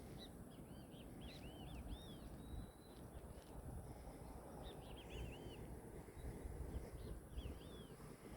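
A small songbird calling faintly in several quick runs of short, arched chirps, with one brief held whistle about three seconds in, over a low rumble of outdoor noise.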